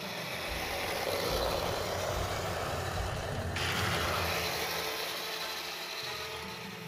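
Taigen M41 Walker Bulldog 1/16 RC tank driving: the simulated engine rumble from its sound unit, mixed with the whir of its metal gearbox and tracks. The sound changes abruptly about halfway through.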